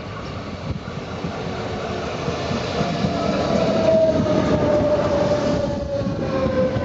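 A Rodalies electric commuter train running along the platform, its wheel and rail noise growing louder over the first few seconds, with a whine that slowly falls in pitch through the second half.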